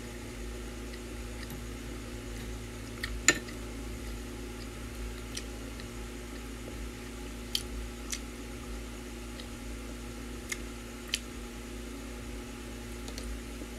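Steady hum of an electric stand fan, with a few short sharp clicks from eating with a bamboo skewer and spoon, the loudest about three seconds in and a few more in the second half.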